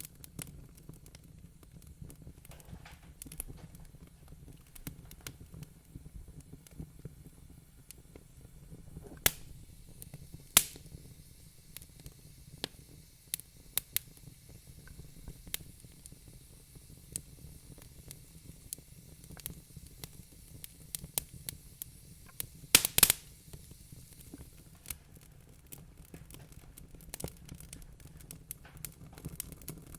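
Wood fire crackling in a fireplace: a constant low rumble of burning with frequent small snaps. Sharp louder pops come a little after 9 and 10 seconds in, and a quick burst of pops comes about 23 seconds in.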